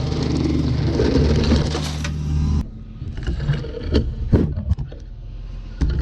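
Heavy machine, plausibly the excavator and its mulcher head, running steadily with crackling over the engine hum. It cuts off abruptly about two and a half seconds in, leaving a quieter stretch of scattered knocks and snaps.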